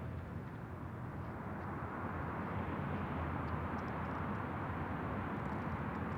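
Jet airliner engines running, a steady rush of noise that grows a little louder after the first second or so.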